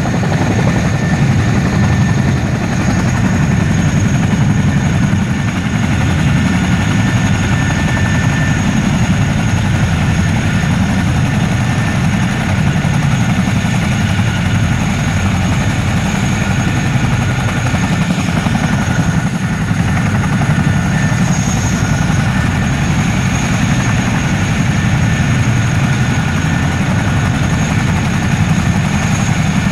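CH-47 Chinook tandem-rotor helicopters running on the ground: a steady, loud, fast low rotor beat with a high, even turbine whine over it.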